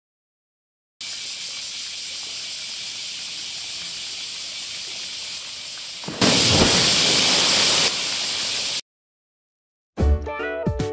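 A polar bear plunging into a pool: a loud splash and rush of water about six seconds in, lasting a couple of seconds, over a steady high hiss.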